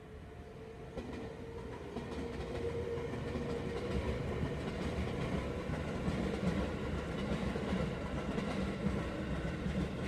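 JR West electric multiple-unit train passing over a level crossing, heard from inside a stopped car: a dense rumble of wheels on the rails that grows louder over the first few seconds as the train arrives, then stays loud as the cars go by.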